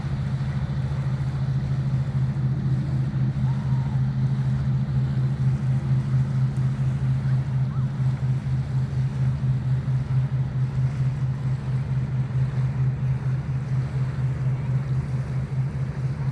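An engine running steadily at a constant speed: a low, even hum with a fast throb, over a faint wash of wind and water.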